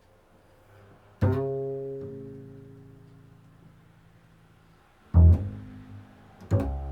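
Low plucked string notes from an improvised piece: one note about a second in that rings and slowly fades over several seconds, then two more sharp plucks near the end.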